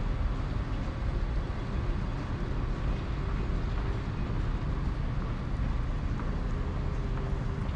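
Steady city street ambience, mostly a low rumble with an even hiss above it and no distinct events.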